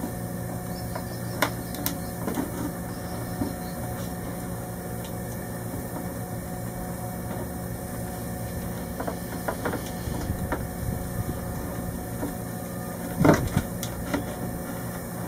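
Light knocks and clicks of wiring being handled and tucked into a boat's battery compartment, the loudest knock about 13 seconds in, over a steady machine hum.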